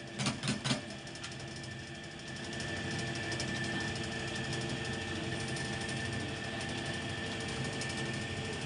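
A few light metal clicks as the sheet is settled on the die, then the hydraulic press runs with a steady hum. The hum grows louder about two and a half seconds in as the press works the die.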